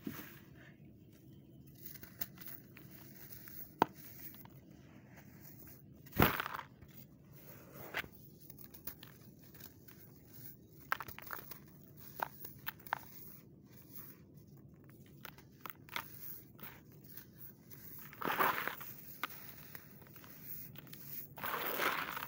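Dry sandy soil being crumbled and sifted by hand in a plastic tub: scattered soft crunches and grainy trickles. There is one sharper knock about six seconds in, and longer gritty rushes of falling sand come later on and again near the end.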